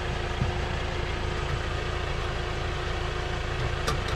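Volkswagen Jetta TDI turbodiesel engine idling steadily, running to charge a jump-start battery. A couple of light clicks come near the end.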